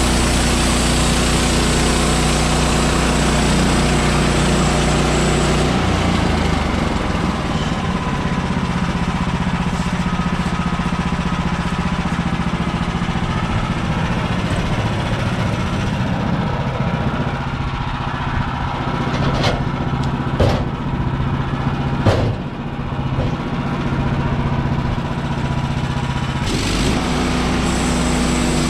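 Portable band sawmill's gas engine running steadily; about six seconds in its note drops and it stays lower until near the end, when it returns to the higher steady sound. A few sharp knocks come in the second half.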